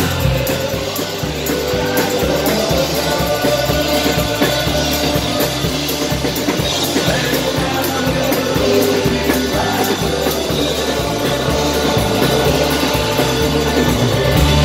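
A live alt-country band playing loudly: electric guitar and drum kit driving a steady beat, with voices singing over it.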